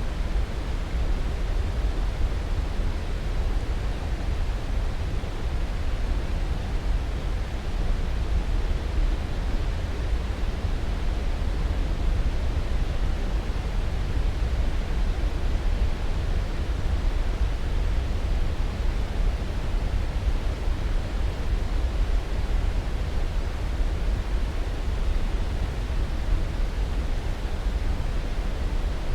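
Steady sleep-aid noise, even and unchanging, heaviest in the deep low end and thinning toward the top, with no distinct events.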